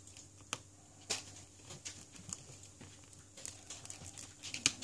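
Light, irregular clicks and taps from tools and small parts being handled while a Samsung Galaxy S7 is taken apart, about one a second, with a sharper click near the end. A faint steady hum lies under them.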